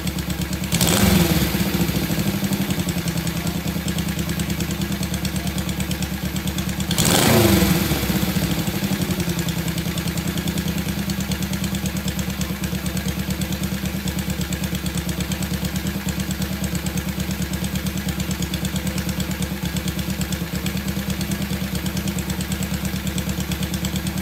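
Honda CB72 Type 1 parallel-twin engine idling with a steady, even beat. It is revved briefly twice, about a second in and about seven seconds in, each time rising in pitch and settling back to idle.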